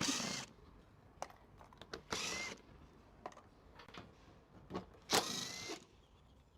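Cordless power driver whirring in three short bursts of about half a second each, spinning out the bumper's bottom bolts, with small clicks between the bursts.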